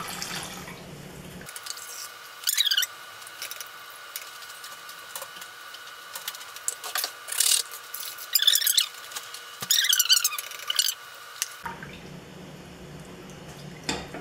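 Milk poured from a carton into a stainless-steel saucepan, then stirred with a silicone spatula: liquid sloshing, with several short squeaky scrapes as the spatula drags against the pan.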